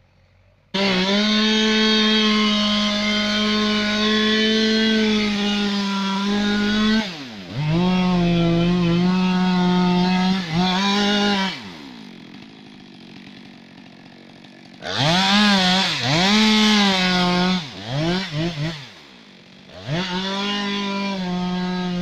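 Two-stroke chainsaw felling a conifer: held at full throttle in a cut for about six seconds, then revved up and down several times, dropping to a quiet idle twice, and running hard again near the end.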